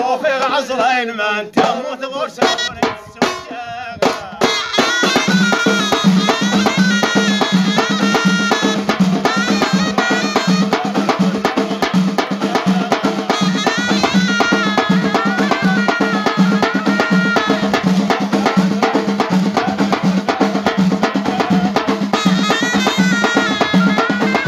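Amazigh ghaita ensemble: a ghaita (Moroccan shawm) plays a reedy, stepping melody over a large stick-beaten side drum and hand frame drums. The first few seconds are loose drum strokes and wavering notes; about five seconds in, the full ensemble settles into a steady fast beat.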